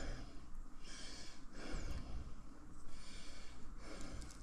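A man breathing heavily through his nose close to the microphone, a hissing breath about every second and a half, with a few faint taps near the end.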